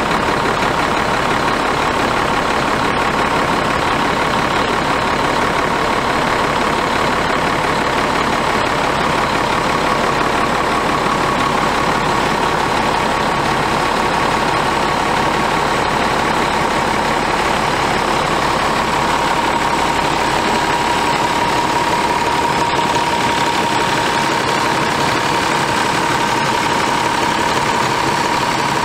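Heavy truck's diesel engine idling steadily, with a steady whine over it.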